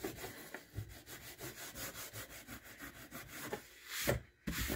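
Hand rasp rubbing along the edge of a round wooden stool seat in quick repeated strokes, several a second, smoothing off chipped edges. A couple of knocks follow near the end.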